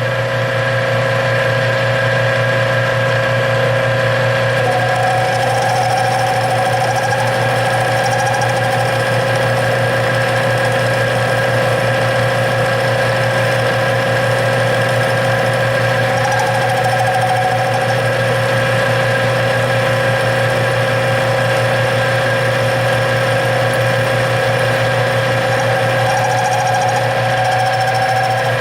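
Metal lathe running steadily while taking a cutting pass on an aluminum workpiece. A faint wavering squeal comes and goes three times.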